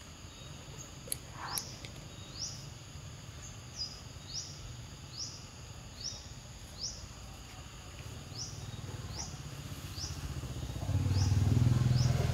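A bird calling repeatedly in short, rising high-pitched chirps, about one a second, over a faint steady insect drone. Near the end a low engine rumble swells up.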